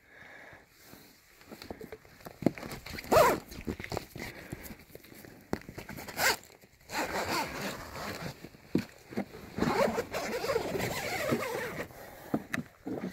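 Zipper on the door of a canvas army tent being pulled open in several strokes, with the wet canvas flap rustling as it is pushed aside.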